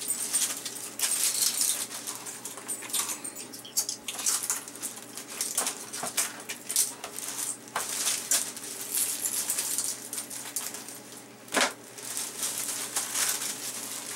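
Plastic zip-top bag crinkling and dry banana chips clicking together as they are handled and dropped into the bag, with one sharper knock about three-quarters of the way through.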